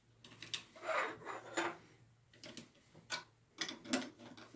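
Lock nuts being threaded onto the motor mount's threaded rods and tightened with a small wrench: a scatter of light metal clicks and scrapes.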